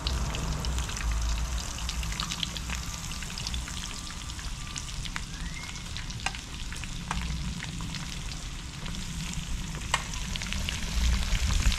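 Pieces of seasoned snapper frying in a wok of hot oil, with a steady sizzle and crackle and many small spattering pops. A few sharp clinks come from the metal slotted spoon as more fish is added, over a low steady rumble.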